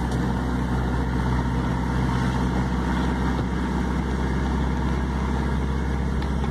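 Vehicle engine running with road noise, heard from inside the cab while driving: a steady low hum.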